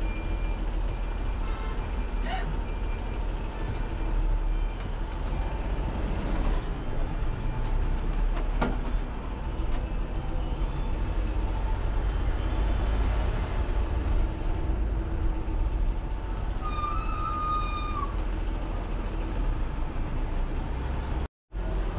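Haryana Roadways bus engine and road noise heard from inside the cabin as the bus drives on, a steady low rumble. A brief high tone sounds partway through, and the sound drops out for a moment near the end.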